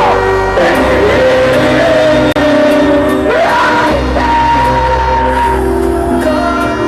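Loud music from a sound system's speaker stacks: a singing voice with long held notes over heavy, steady bass.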